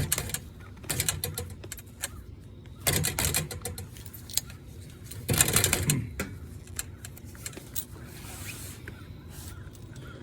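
Hand tools working copper air-conditioner line-set pipe: many small metallic clicks with a few short rasping scrapes, about a second, three seconds and five and a half seconds in, typical of deburring the cut pipe end.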